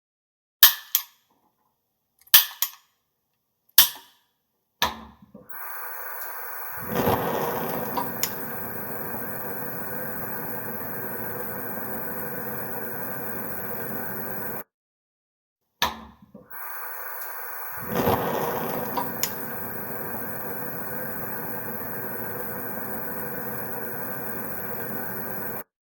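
Gas stove burner being lit: the igniter clicks three times, then the gas hisses and catches with a whoosh into a steady burner hiss. The hiss cuts off, and after another click the burner is lit again with a whoosh and runs with the same steady hiss.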